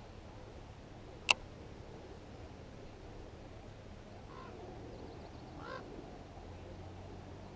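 A single sharp click about a second in, then two faint short bird calls a little over a second apart, over a low steady hum.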